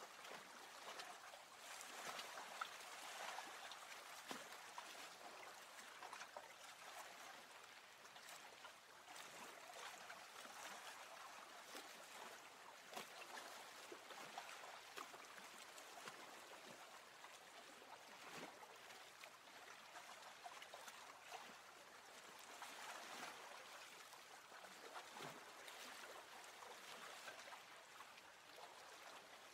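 Faint lake water lapping and trickling, with many small drips and splashes.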